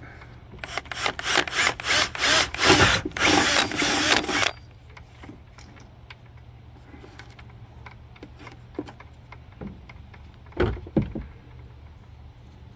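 Cordless drill with a twist bit boring a hole through a jet ski's deck, run in short pulses and then steadily for a few seconds before stopping abruptly. Two short knocks follow near the end.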